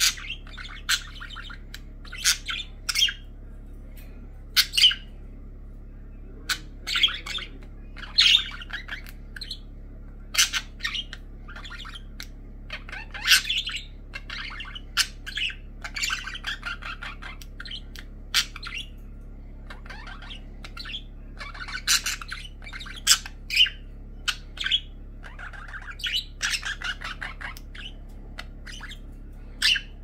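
Pet budgerigars chirping and squawking in short, irregular calls with bursts of rapid chatter, the excited calling of budgies greeting their owner.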